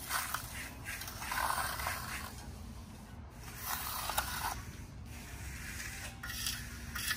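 Hand trowel scraping over the face of a freshly cast concrete countertop in a series of short strokes, burnishing the setting concrete to a smooth, hard finish.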